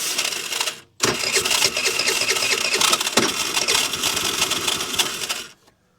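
A 50cc Chinese scooter engine cranked on its electric starter: a short burst, then after a brief pause a steady whirring with a rhythmic beat for about four and a half seconds that cuts off. It is a test of whether the engine will fire on a squirt of spray into a vacuum leak.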